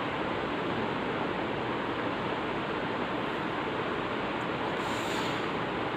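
Steady hiss of room background noise, even and unchanging, with a faint brief rustle about five seconds in.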